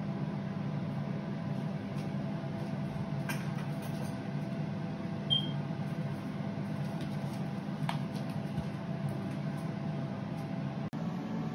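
Steady low hum of a running appliance, with a few faint clicks and one short high beep about five seconds in.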